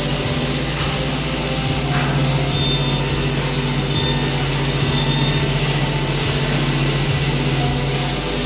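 Wood-cutting CNC router running steadily: a constant machine hum with a high whine above it.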